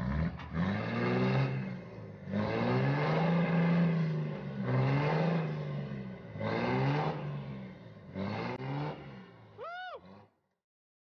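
Pickup truck engine revving in about five repeated surges as it pulls on a chain to tear a tree stump out of the ground, with a brief squeal near the end.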